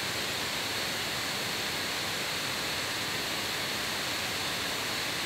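Steady hiss of the recording's background noise, unchanging, with no other sound.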